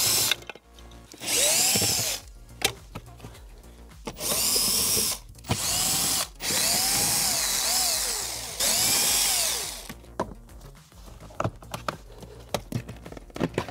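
Cordless Bosch drill-driver unscrewing dashboard trim screws in about six short runs, its motor whine speeding up and slowing down with each run. After about ten seconds come a few light clicks and knocks.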